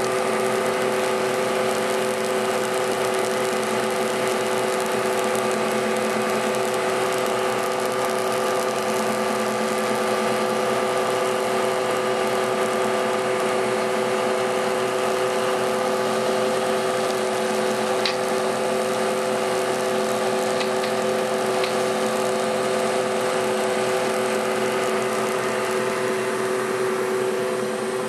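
A small electric motor running steadily, a constant whir with a steady hum, and a couple of faint ticks about 18 and 21 seconds in.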